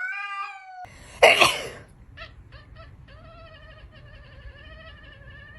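A cat calling: a short meow, a loud harsh outburst about a second in, a few short clicks, then one long drawn-out steady yowl.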